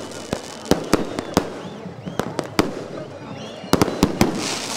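Fireworks going off: an irregular string of sharp bangs from bursting shells, with a quick cluster of bangs late on, short whistling glides rising and falling between them, and a burst of hiss near the end.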